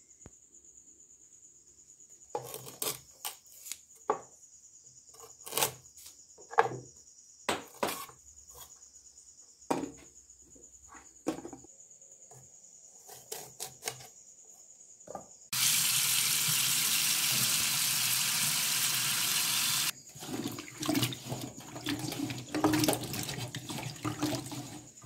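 Scattered sharp clicks and snaps as moringa drumstick pods are cut into pieces. About halfway through, a tap runs steadily into a steel sink for about four seconds and stops suddenly. Then comes irregular splashing as the pieces are washed by hand in a bowl of water.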